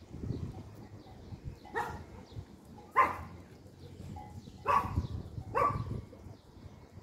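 A dog barking four times, short separate barks spread over a few seconds, over a low background rumble.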